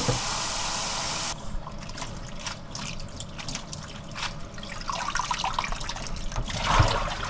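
Tap water pouring onto blanched scallions in a plastic basin, cooling them, stops suddenly about a second in. Then a hand swishes the scallions through the basin water with irregular sloshing and splashing, busier near the end.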